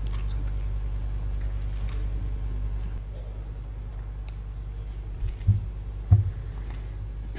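Steady low hum of the chamber's room tone picked up by the dais microphones, with faint scattered ticks and two dull low thumps about five and a half and six seconds in.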